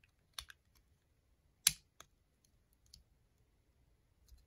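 Plastic LEGO bricks clicking as they are pressed together by hand: about six short, sharp clicks, the loudest a little before halfway.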